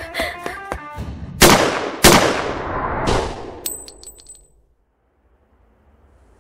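Three loud gunshots about a second apart, each with a long ringing tail, followed by a few high metallic pings. Then the sound drops away to near silence.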